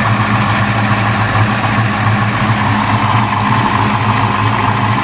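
Fox Body Ford Mustang engine idling steadily through headers and a newly fitted H-pipe, with no exhaust leak at the passenger-side header.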